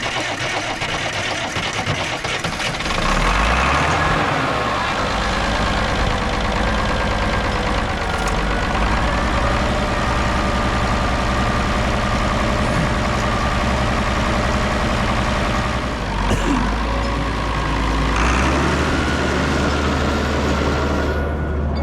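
Heavy vehicle engine running steadily. It picks up about three seconds in, and its speed rises again near the end.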